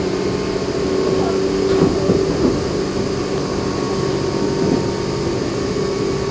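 Meitetsu 6000 series first-batch electric train running at speed: the steady hum of its resistance-controlled traction motors over rolling rail noise, holding one pitch.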